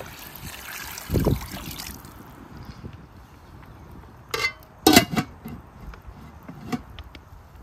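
Water running, cutting off about two seconds in, then a few sharp knocks and clatters, the loudest a double knock about five seconds in.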